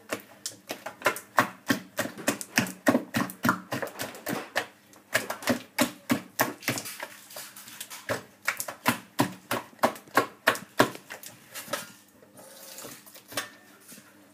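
A hand beating thick baghrir batter in a bowl: rapid, rhythmic wet slaps, about three or four a second, that die down shortly before the end.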